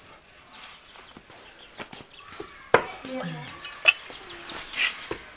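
Large kitchen knife cutting simmered buffalo hide on a thick wooden chopping board, with three sharp knocks of the blade on the board about a second apart.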